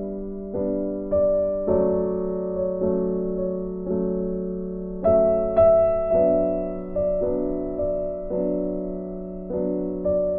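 Background piano music: soft chords struck about every half second, each fading away.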